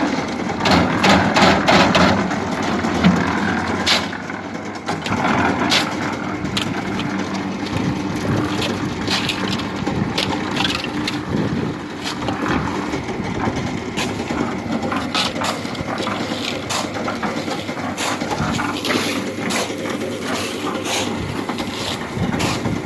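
Drum concrete mixer machine running steadily, its engine and turning drum sounding throughout, with frequent short knocks and scrapes as concrete and stones are worked.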